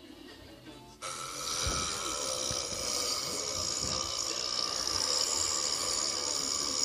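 A long, rough, drawn-out burp that starts suddenly about a second in and grows slowly louder.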